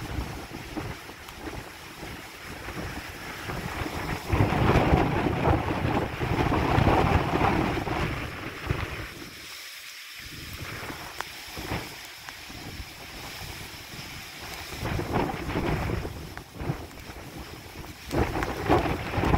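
Gusty wind of an approaching severe thunderstorm buffeting the microphone in low rumbling gusts, strongest from about four to nine seconds in, easing briefly, then gusting again near the end.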